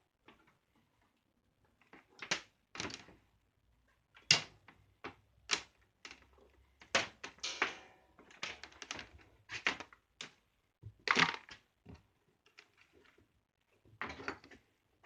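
Small manual wire stripping machine working a thicker-gauge copper wire: a string of short, irregular scrapes and clicks as the wire is fed through and its insulation is cut.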